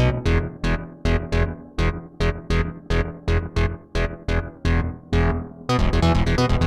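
Arturia MatrixBrute analog synthesizer playing a repeating sequenced pattern of short plucked notes over a bass line, about three to four a second, each note bright at its start and quickly dulling. Near the end the pattern becomes denser and faster.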